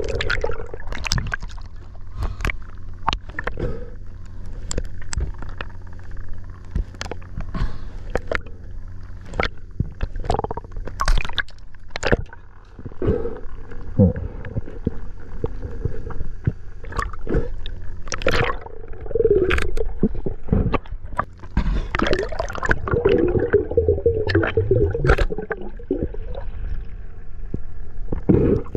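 Underwater sound picked up by a diving camera: scattered sharp clicks and crackles, bursts of gurgling bubbles, and a steady low hum underneath.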